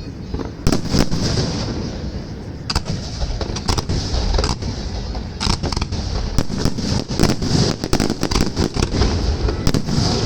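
Fireworks salute: shells bursting in repeated sharp bangs over a steady low rumble. The bangs come few and spaced at first, then quicker and denser from about halfway on.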